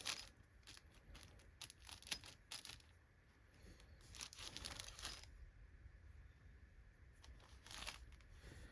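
Faint, scattered rustling and scraping of hands handling vacuum parts, in short bursts with quiet gaps between.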